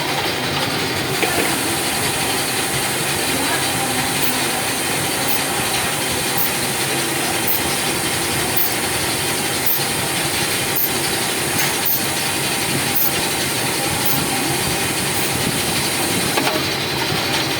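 CNC machine running steadily with a dense mechanical noise, with a short high click about once a second through the middle.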